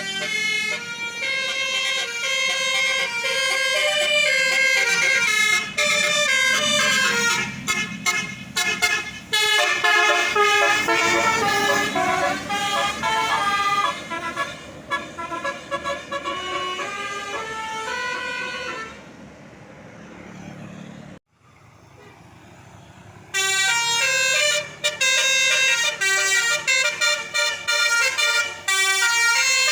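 Tour bus's Basuri telolet multi-tone horn playing a quick stepping melody over and over, with a quieter break of a few seconds about two-thirds through before the tune starts again.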